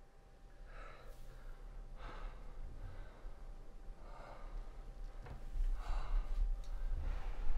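A distressed man breathing heavily in ragged gasps and sighs, about one breath every one to two seconds, over a low rumble that grows louder in the second half.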